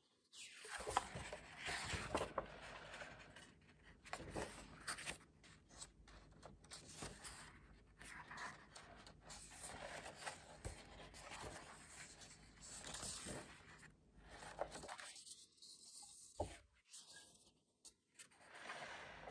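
Pages of a large picture book being turned and handled: paper rustling, rubbing and scraping, with two short lulls in the last few seconds.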